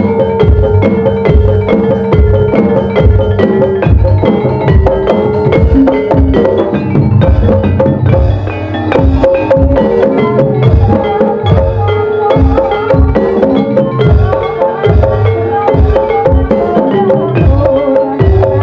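Gamelan ensemble playing ebeg accompaniment: struck metal and wooden mallet instruments repeat a ringing melody over steady beats of hand drums.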